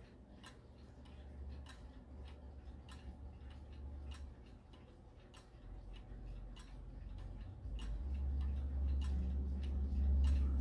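Urgos 8-day pendulum wall clock ticking steadily, about two ticks a second. A low rumble rises under the ticking and is loudest in the last few seconds.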